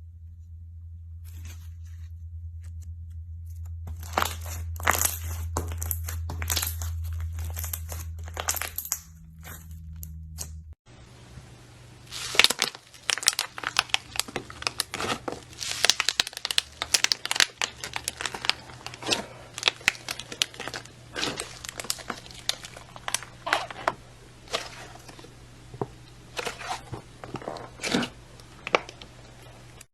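Slime being squeezed and worked by hand, giving many sharp crackles and pops. About eleven seconds in the sound cuts to another clip, where the crackling is denser and more continuous.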